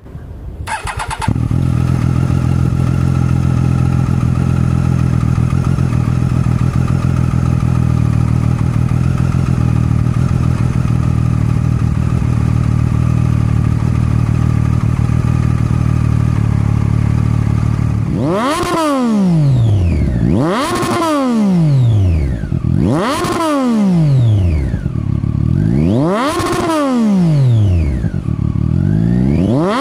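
2015 Triumph Daytona 675R's 675 cc inline-three engine through an Arrow full-system exhaust, starting about a second in and idling steadily. From about two-thirds of the way through it is revved in short sharp blips, each climbing and dropping quickly, several in a row.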